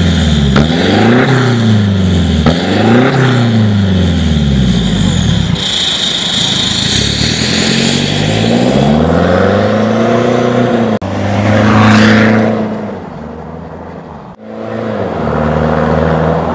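Ford Ranger turbo-diesel pickup's aftermarket exhaust with resonator and R 5515 muffler: the engine is blipped in quick revs, rising and falling about once a second, then accelerates with longer climbs in pitch as the truck pulls away.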